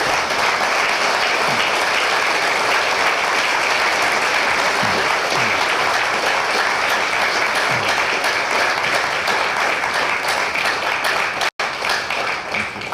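Audience applauding steadily, then dying away at the end, with a momentary gap in the sound shortly before it fades.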